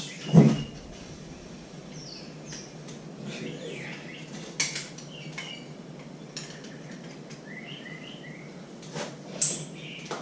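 Small metal tool and screw clinks, with a loud knock about half a second in and scattered sharp clicks after it. Birds chirp now and then behind them.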